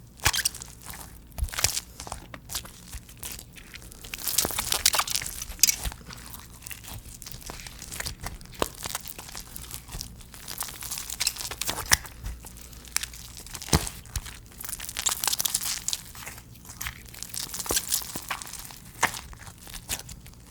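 Slime being squeezed and pulled by hand, with many small crackles and pops and some louder crunchy, tearing stretches.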